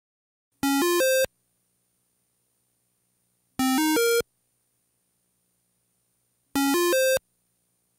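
Chiptune-style synthesizer beeps: a quick run of three rising notes, played three times about three seconds apart with silence between, like an electronic phone signal.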